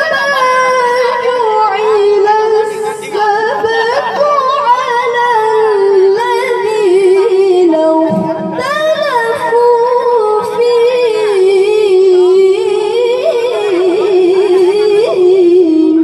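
A young girl's voice reciting the Quran in the melodic tilawah style, drawing out one long ornamented phrase with quick wavering trills, its pitch sinking slowly lower.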